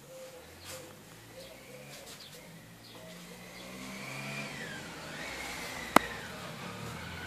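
A motor vehicle's engine running and revving, with a whine that glides up and down and grows louder over the second half. A single sharp click comes about six seconds in.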